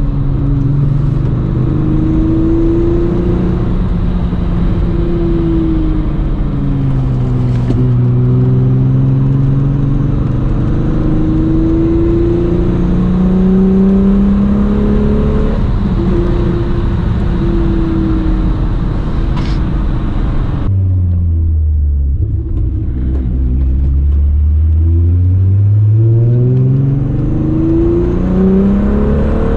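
Volkswagen Mk3 GTI's VR6 engine on the road, its pitch rising and falling with engine speed through the gears. About two-thirds of the way through the sound changes abruptly, and the engine then climbs steadily in pitch as the car accelerates.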